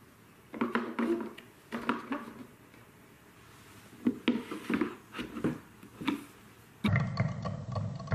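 Plastic and wooden marble-run pieces being set down and fitted onto toy blocks: several clusters of light knocks and clicks. Near the end comes a denser, continuous rattling as a wooden piece's paddle wheel spins.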